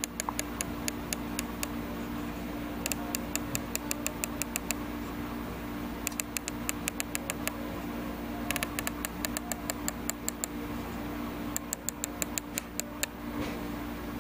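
Leupold CDS elevation turret on a riflescope being turned by hand, clicking through its detents in five quick runs of about ten clicks each, roughly eight clicks a second, over a steady low hum.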